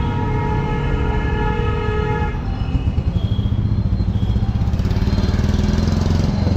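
Road traffic: a horn held for about two seconds, then a vehicle engine running with a fast, even throb.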